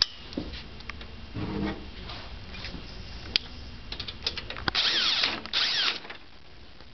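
Cordless drill-driver spinning up in two short bursts, about half a second each, driving a screw into the trolley frame. Scattered clicks and knocks of parts being handled come before.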